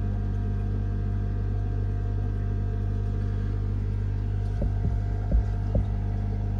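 Steady low electrical hum of fish-room equipment such as air pumps and filters. A few dull low bumps come near the end.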